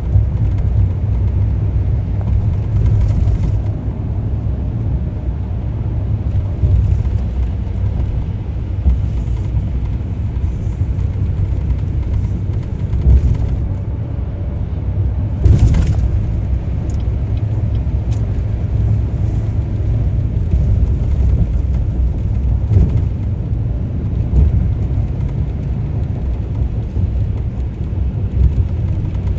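Steady low rumble of a car on the move, with one brief louder burst about halfway through.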